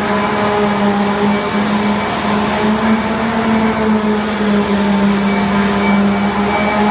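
Workshop machine running steadily: a constant hum with overtones over a loud hiss, unchanging throughout.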